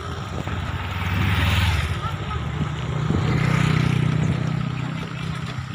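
A motor vehicle engine running, swelling in loudness twice as its pitch shifts up.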